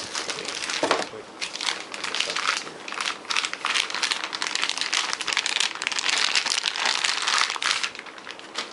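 Plastic wrapping crinkling and crackling as it is handled and pulled off a laptop power adapter, stopping shortly before the end.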